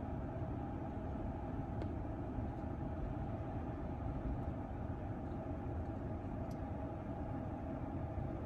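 Steady low rumble with a faint even hum inside the cabin of a Tesla Model S P100D, with a couple of faint ticks.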